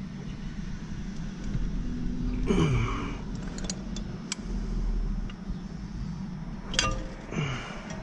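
Light metallic clicks and clinks from hands handling the wiring and metal terminal-cover bracket on an air-conditioner compressor, over a steady low rumble. Twice, a short low sound falls in pitch.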